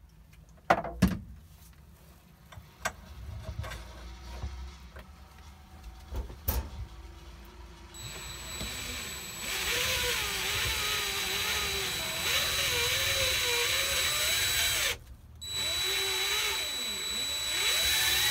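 A few knocks and clicks, then about eight seconds in a cordless drill starts turning a cutter on an extension rod into a steel pistol slide, at its slowest trigger speed. It runs with a steady high whine over a wavering lower tone, stops briefly and restarts near the end.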